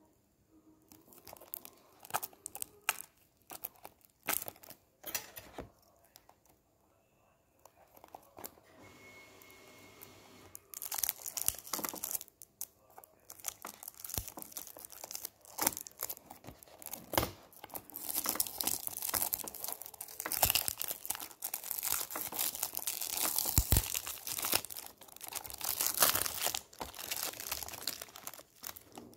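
Clear cellophane shrink-wrap being torn and crinkled off a small cardboard toy-car box. There are scattered clicks and rustles for the first ten seconds or so, then dense, loud crinkling from about eleven seconds on.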